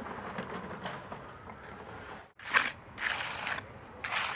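Wet concrete sliding out of a tipped wheelbarrow and worked with a shovel, then, after a cut, a hand trowel scraping over the fresh concrete in a few short strokes.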